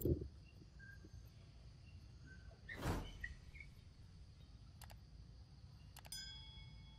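Outdoor ambience with a low wind rumble: a thump right at the start, a whoosh about three seconds in, a few faint short chirps, and a click followed by a brief ringing chime near the end.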